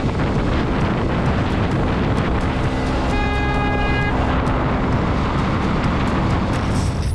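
Wind and road noise of a vehicle on the move, with a vehicle horn sounding once for about a second about three seconds in.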